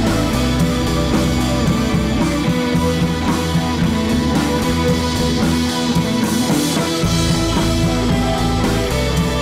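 Background rock music with guitar and drums; the bass drops out briefly about six seconds in.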